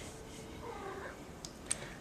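Domestic cat giving a short, soft meow about half a second in, followed by a couple of light clicks near the end.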